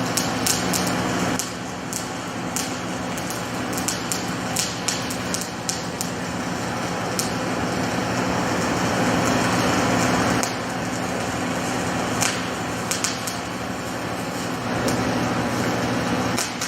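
Rotoweld 3.0 automated pipe spool welding machine running: a steady electrical hum under a hiss, with sharp crackles and clicks scattered through it. It gets louder in stretches and drops back abruptly.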